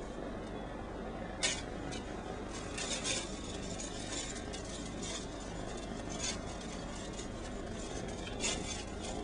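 A kitten moving about, with a few short scattered rustles and clicks over a steady background hiss.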